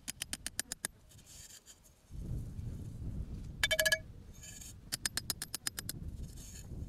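A hammer striking a metal 50 mm exhaust tube, driving it into the soil for a soil core, in three quick runs of sharp metallic taps. Wind rumbles on the microphone from about two seconds in.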